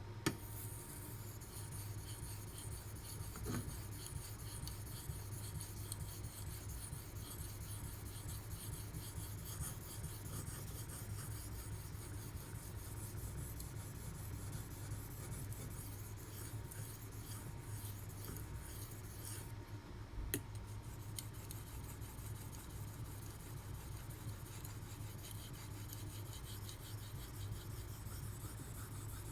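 A D2 steel knife blade being stroked across a Naniwa Pro 3000-grit whetstone: a steady, continuous scraping. A sharp click comes just after the start and another about twenty seconds in.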